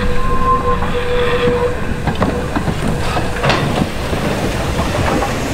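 Train running on a heritage steam railway: a constant low rumble with a few sharp knocks from the track. A steady tone sounds over it and stops less than two seconds in.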